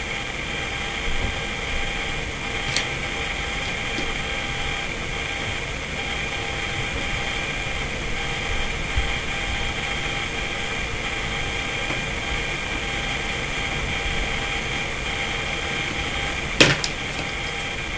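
Steady machine hum with several high, fixed whining tones, with one faint click about three seconds in and a sharp knock near the end.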